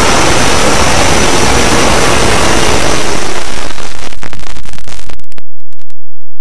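Loud, dense noise like static from many video soundtracks layered on top of each other. About three seconds in it thins into crackling, and after about five seconds only a few sharp clicks are left.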